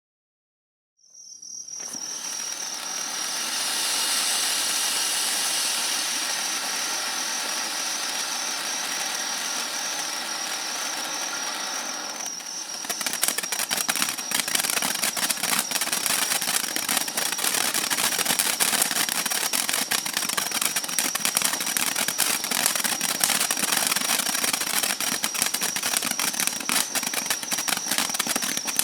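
Firework fountain igniting about a second in and spraying with a steady hiss and a thin high-pitched whine. About halfway through it changes to dense, rapid crackling.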